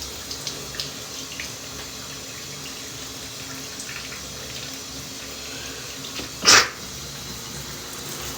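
Shower water running steadily, with one short, loud sneeze from a man about six and a half seconds in.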